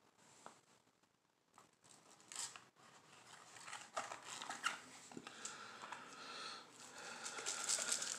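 Plastic snuffer bottle working in a wet gold pan, sucking up gold flakes: faint ticks at first, then denser crackling, slurping sound from about three seconds in, loudest near the end.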